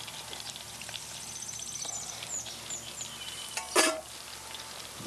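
Melted butter sizzling steadily in a saucepan on a hot portable burner, with birds chirping in the background and one short, sharp sound a little under four seconds in.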